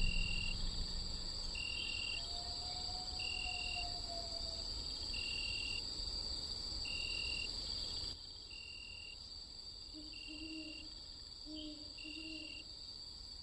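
Night ambience of crickets chirping about once a second over a steady insect drone, with an owl hooting: one long hoot a few seconds in and a few short hoots near the end.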